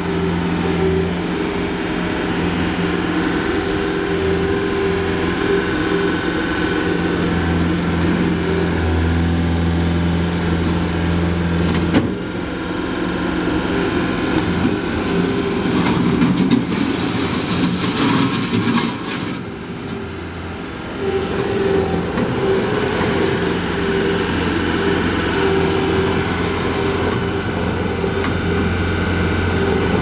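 Gehl 6640 skid steer's diesel engine running steadily under throttle while the loader works and drives on gravel. The engine note changes with a click about 12 seconds in, drops briefly a little past halfway, then picks back up.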